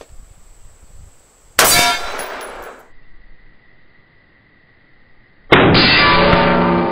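Two rifle shots at a steel target, one about a second and a half in and one near the end, each followed by a ringing clang of the AR500 steel plate struck by a 5.56 green-tip (steel-penetrator) round. The second clang rings on longer.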